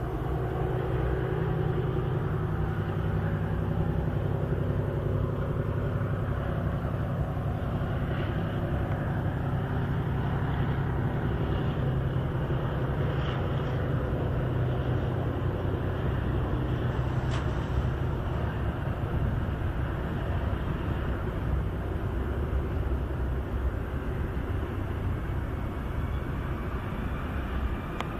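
Steady low engine rumble, an idling motor running without change.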